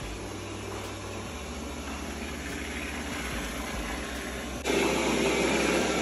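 Roborock S7 MaxV robot vacuum's suction fan running steadily on its quiet setting. About three-quarters of the way in it turns abruptly louder, running on the normal suction setting.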